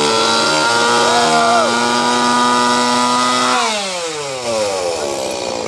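Two-stroke chainsaw revved at full throttle and held high and steady. About three and a half seconds in the throttle is released and the engine speed falls away to idle.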